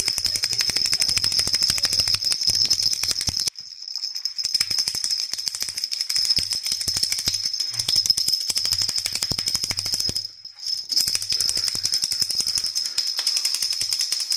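Cat toy rattling as it is shaken hard and fast, with brief pauses about three and a half seconds and ten seconds in.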